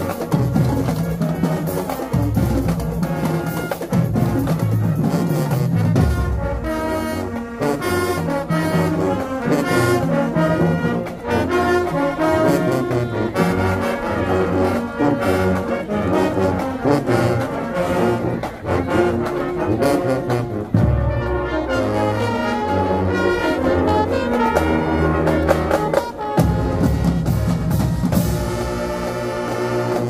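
High school marching band playing a tune at full volume: a brass section over a drumline, with the low brass holding heavy bass notes.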